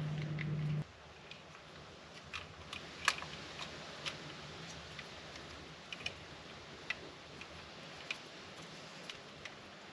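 Scattered light clicks and taps of hand tools and small metal parts being handled during work on a chainsaw engine, spaced irregularly. A steady low hum cuts off about a second in.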